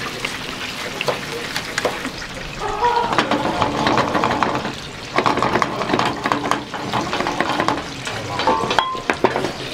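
Beaten eggs sizzling in a small frying pan while being stirred and scrambled with chopsticks, which click and scrape against the pan many times.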